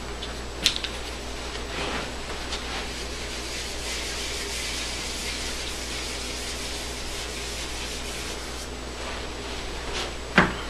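Whiteboard eraser rubbing across a whiteboard, wiping off the written letters in a steady hiss. A short click comes under a second in and a sharper knock near the end.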